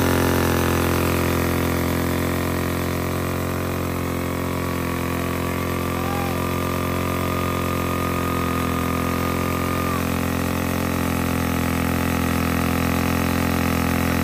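Motorcycle engine running at a steady speed, a constant drone with no changes in pitch.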